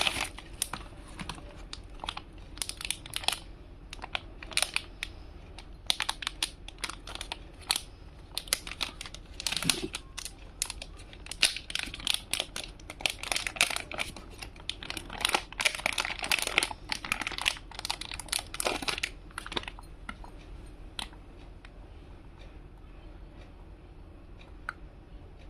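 Plastic packaging crinkling and rustling, with many small clicks and taps, as a boxed earbud case is unwrapped and handled. The handling noise dies down after about 19 seconds, leaving only faint background noise.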